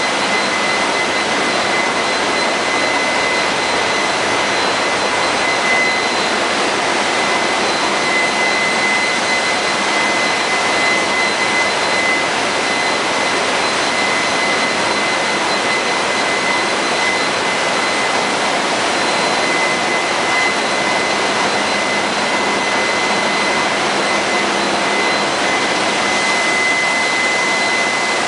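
Loud, steady machinery noise of a running ship's engine room, a dense even hiss with a steady high-pitched whine running through it.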